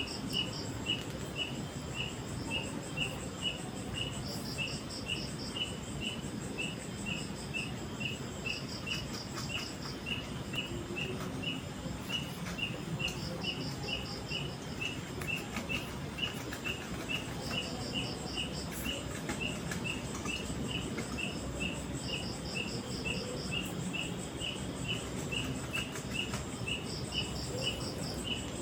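Insects chirping: one keeps up a steady chirp about two to three times a second, while another gives a short pulsed trill every four or five seconds. A steady low rushing noise runs underneath.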